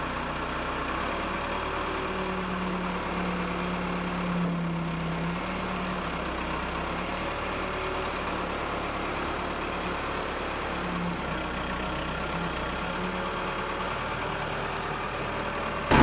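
Case backhoe loader's diesel engine idling steadily.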